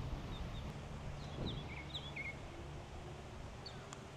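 Outdoor background of low wind rumble on the microphone, with a few short, falling bird chirps in the first couple of seconds.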